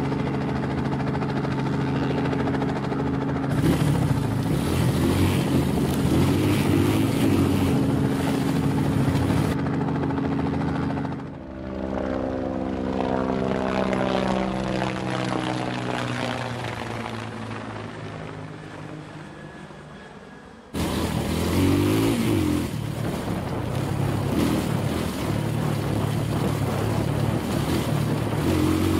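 Motorbike engines running at a steady pace. About eleven seconds in the sound sweeps and fades away over several seconds, then cuts abruptly back in loud as a bike is ridden along a dirt track.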